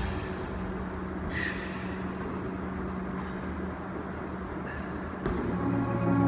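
A few short knocks and thuds of bodies working against a wall and mat during handstand push-ups, over a steady low hum. Background music comes back in near the end.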